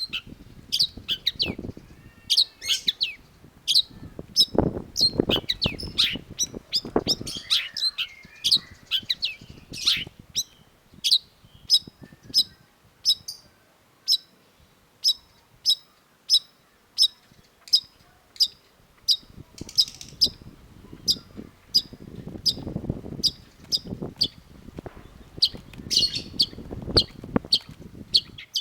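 Long-tailed shrike calling: a long run of sharp, high chips, about two a second and very regular through the middle, with faster, more varied notes near the start and end. Low rumbling noise comes and goes underneath in the first seven seconds and again around twenty seconds in.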